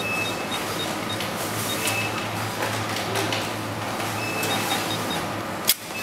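Card terminal's built-in receipt printer printing a transaction slip. A short sharp snap comes near the end as the slip is torn off.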